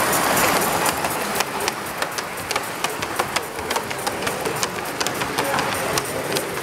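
Live-steam model of a DB class 64 tank locomotive running on the layout: a steady hiss with a quick, irregular patter of sharp clicks.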